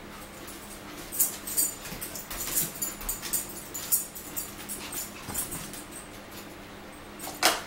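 Close-up eating sounds: a quick run of smacks and crackles from chewing and from a paper sandwich wrapper being handled, with one sharp tap near the end.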